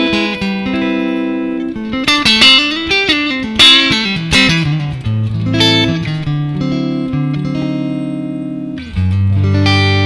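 Squier Affinity Stratocaster electric guitar played through a Yamaha THR10X amp set to a clean tone with a little spring reverb. Ringing chords are broken by a quick run of single notes that climbs and then falls, and a new, lower chord is struck near the end.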